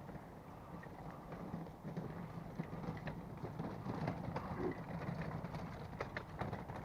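Footsteps walking on a hard path, irregular steps that grow sharper and closer together near the end.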